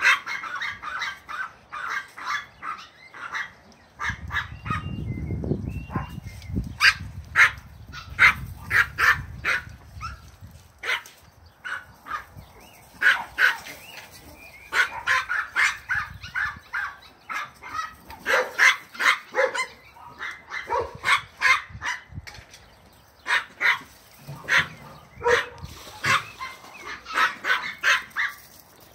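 Dogs barking in play: many short, sharp barks in quick runs while they chase each other. A low rumble sits underneath from about four to ten seconds in.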